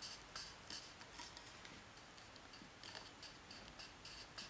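Faint, scattered light ticks and scrapes of the FX Royale 200 air rifle's barrel shroud being twisted and worked off the barrel by hand.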